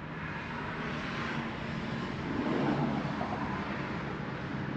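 Steady outdoor background noise with a distant engine-like rumble, swelling a little partway through.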